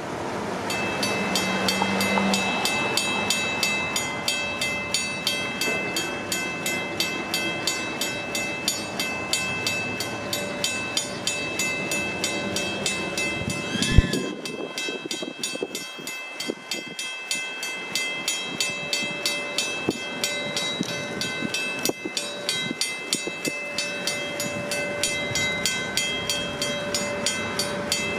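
Railroad crossing warning bells ringing in a fast, even rhythm as the crossing activates and its gates come down, with a single sharp knock about halfway through.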